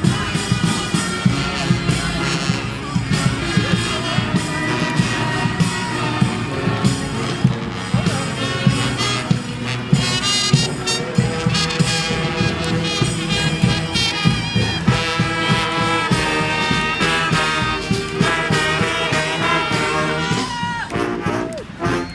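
A street brass band playing: trumpets and trombones over steady drumming.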